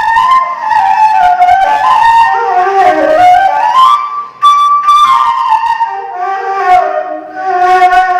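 Solo ney, an Arabic end-blown reed flute, playing a freely improvised melody with notes that step and glide between pitches. About four seconds in there is a short pause for breath, then a high held note, and the line descends again.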